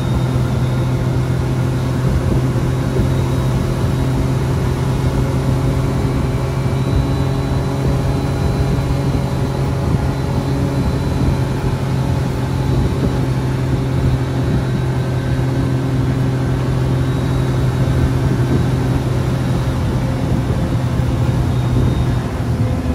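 2023 Kawasaki Mule Pro-FXT side-by-side's three-cylinder engine running steadily at highway speed, just under 50 mph, as a steady, unchanging drone.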